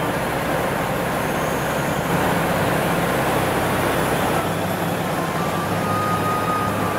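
Steady rumble of heavy diesel trucks idling, with a low, even engine hum.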